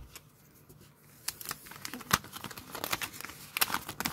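Foil booster-pack wrapper crinkling as it is handled, in scattered sharp crackles that start about a second in.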